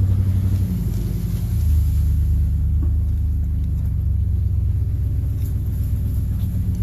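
Vehicle engine running with a steady low rumble, its pitch dropping slightly about a second and a half in.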